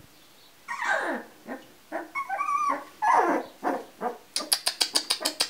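Two-week-old Labrador retriever puppies crying: falling and wavering whines and squeals, then a quick run of short, sharp sounds, about six a second, near the end.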